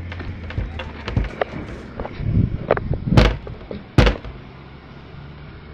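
A door apparently being shut: small knocks and clicks, then two loud bangs a little under a second apart, about three seconds in.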